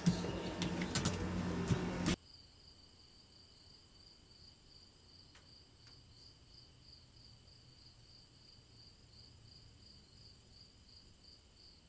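Crickets chirping in a faint, steady, high pulsing trill. For about the first two seconds a louder noise covers it, then cuts off abruptly.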